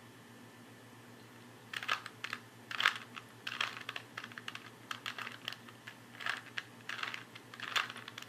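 Plastic clicks and clacks of a Rubik's Cube's layers being twisted by hand in quick, irregular runs, starting about two seconds in, over a faint steady hum.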